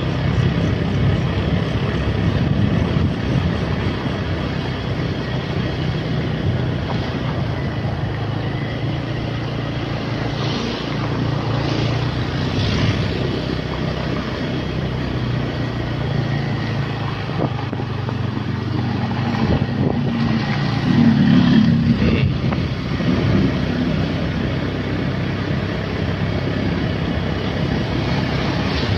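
Motorcycle engine running steadily under way, with wind rushing over the microphone. The engine sound swells briefly about two-thirds of the way through.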